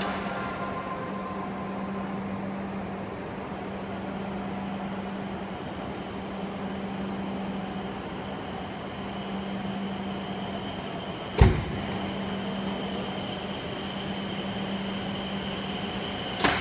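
Station platform ambience: a steady low hum under an even background rush, with a faint high whine coming in about three seconds in. A sudden loud thump about eleven seconds in, and a shorter knock near the end.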